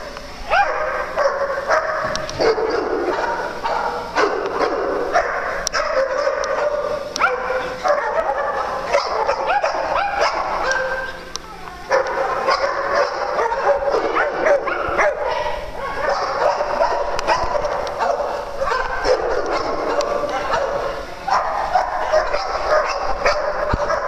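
Many small dogs barking and yipping at once, a dense, steady chorus of overlapping barks, with a brief lull about eleven seconds in.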